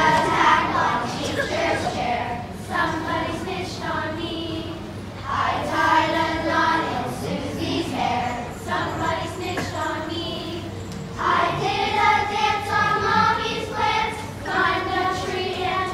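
Children's choir singing together, in short phrases with brief pauses for breath between them.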